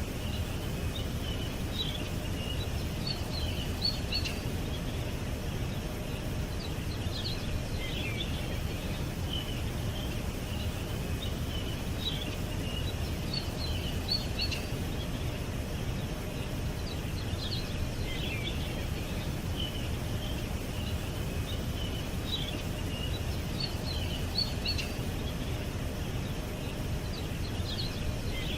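Small songbirds chirping and twittering in scattered bursts over a steady low background rumble.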